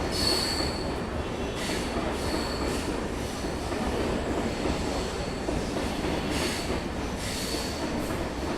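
Mumbai local train running on the rails with a steady rumble, and a thin high wheel squeal coming and going several times.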